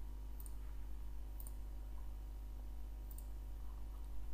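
Three faint computer mouse button clicks, spaced irregularly, over a steady low electrical hum.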